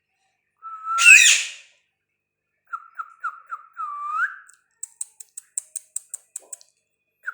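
Pet parrot whistling and squawking. A rising whistle breaks into one loud, harsh squawk about a second in. Then come five short whistled notes ending on a longer upswept whistle, and a rapid run of about a dozen sharp, high chirps.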